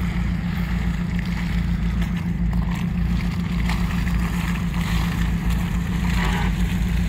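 Off-road 4x4 engine running with a steady low drone.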